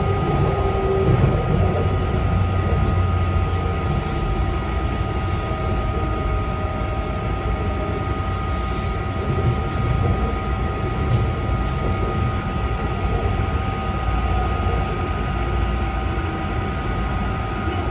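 Taichung MRT Green Line metro train running, heard from inside the car: a steady low rumble of wheels on rail with a steady high whine over it.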